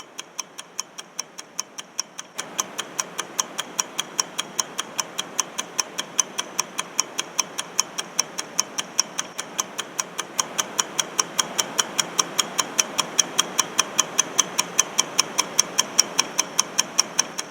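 Clock-ticking countdown timer sound effect: even, sharp ticks at about three to four a second, over a steady hiss that gets louder about two seconds in.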